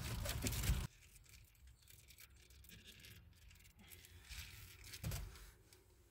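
A burst of close rustling and crinkling, like fabric or foil handled against the phone, for about the first second; then quiet with faint scattered clicks and a soft thump about five seconds in.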